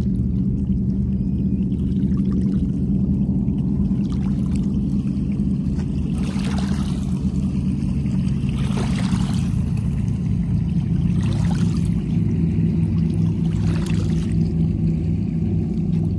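Small waves lapping on a rocky lake shore, a soft wash about every two and a half seconds, over a steady low rumble.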